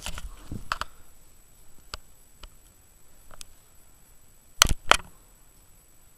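A few light clicks, then two loud sharp clicks about a third of a second apart near the end, over a quiet background.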